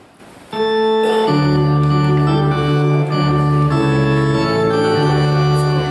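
Organ music starts suddenly about half a second in: loud held chords that change every second or so.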